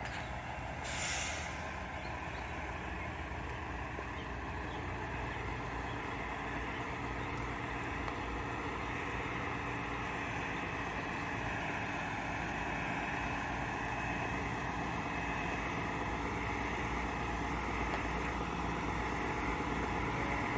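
A bus engine running steadily and slowly growing louder, with a short hiss of air about a second in.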